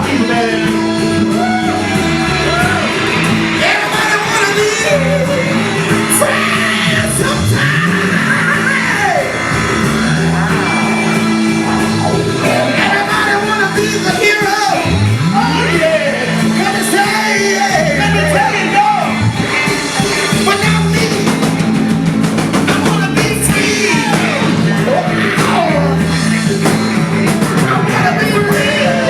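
Live band playing old-school American roots rock, with a lead singer's voice over guitar, bass and drums.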